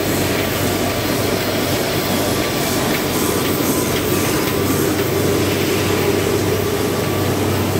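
1997 Komori Lithrone L528 five-colour sheetfed offset press running: a steady mechanical running noise with a constant low hum.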